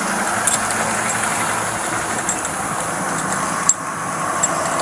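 Car engine idling steadily, with a single sharp click about three-quarters of the way through.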